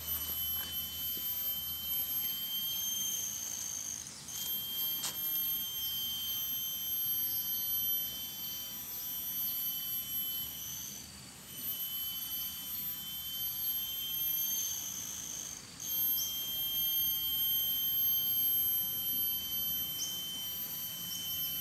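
Insects calling from the vegetation round a pond: a steady, high-pitched whine of pure tones that breaks off briefly three times.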